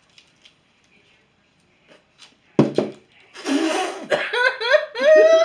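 A woman coughs sharply about two and a half seconds in, then gives a breathy exhale and drawn-out, sliding vocal sounds of disgust at a bad-tasting lollipop.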